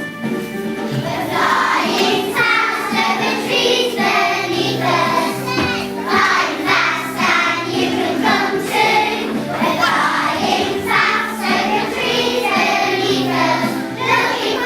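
Choral music: a choir singing over sustained accompanying tones, the singing growing fuller about a second and a half in.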